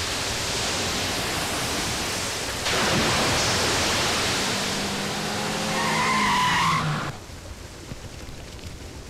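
A loud rushing noise, then a heavier water-splash rush about two and a half seconds in as a body plunges into a river. The rush runs on for about four seconds with a few brief wavering tones mixed in, then cuts off suddenly, leaving a faint steady hiss.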